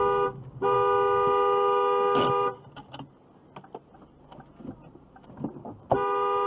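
Car horn sounding in long held blasts, a steady two-tone blare. It breaks briefly near the start, stops about two and a half seconds in, and sounds again near the end.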